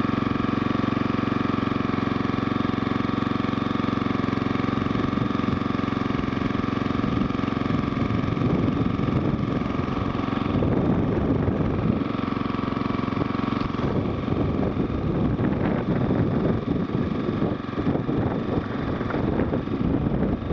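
A motorized bicycle's 5 hp Briggs & Stratton single-cylinder lawnmower engine running steadily under way. Wind buffets the microphone from about a third of the way in and grows until it nearly covers the engine near the end.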